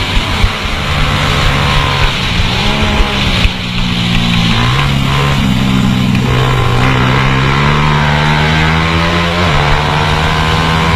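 Single-cylinder 150 cc motorcycle engine at racing speed, its pitch climbing and then dropping back several times as the rider works the throttle and gears.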